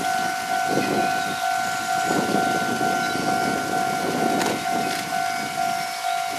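Railway level-crossing alarm ringing: a steady ringing tone that pulses in an even beat, about one and a half strikes a second, as a diesel railcar approaches on the line.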